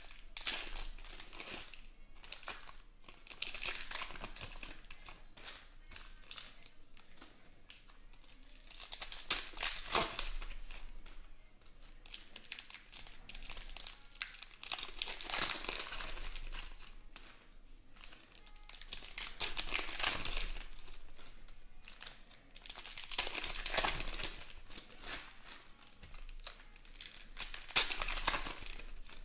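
Basketball trading card pack wrappers being torn open and crinkled by hand. The crinkling comes in repeated bursts about every four to five seconds, with quieter rustling between them.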